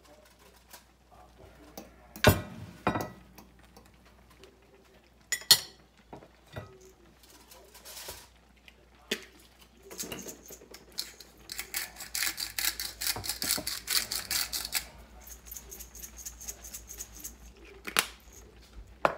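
Metal utensil knocking and clinking against a skillet while soup is stirred, with a few sharp knocks and a run of fast clicking for about three seconds past the middle.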